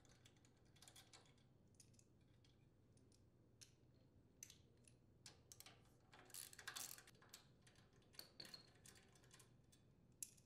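Near silence broken by faint, scattered metal clicks and light rattling from a 10 mm socket wrench and the mounting nuts being taken off an engine's air filter housing, busiest about six to seven seconds in.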